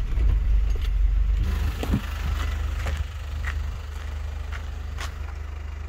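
Camper van's engine idling steadily, with a few light clicks over it.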